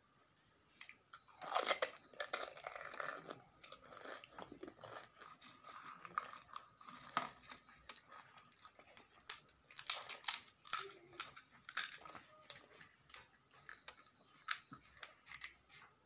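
Pani puri being eaten close to the microphone: crisp, hollow puri shells cracked and crunched, with chewing. The crunching comes loudest about two seconds in and again around ten seconds, with scattered crackles between.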